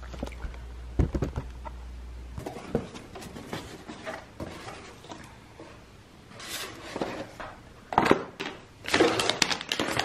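A cardboard box being opened and unpacked by hand: flaps and packaging handled, with a few light knocks about a second in and bouts of rustling from plastic and paper wrapping, busiest in the second half.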